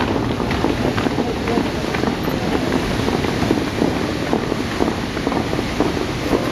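Bellagio fountain water jets shooting up and splashing back onto the lake, a steady rushing noise, with wind buffeting the microphone.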